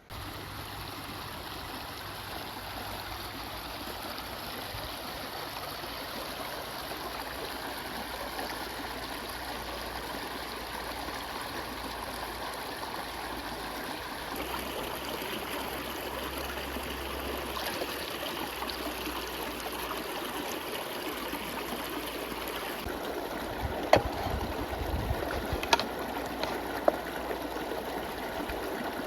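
Water running steadily with a continuous rushing, starting abruptly; a few sharp knocks come near the end.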